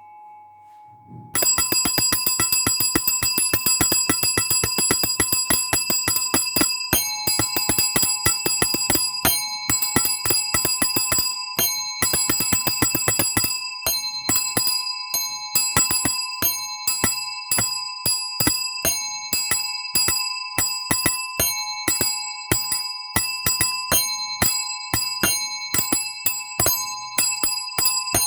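A bell rung with rapid repeated strikes on the same ringing pitches, like a doorbell's clapper hammering. It starts suddenly about a second in and rings continuously at first, then in short bursts with brief gaps.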